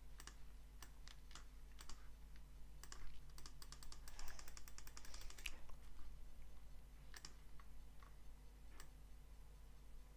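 Scattered clicks of a computer keyboard and mouse, with a fast run of clicks about four seconds in, over a steady low hum.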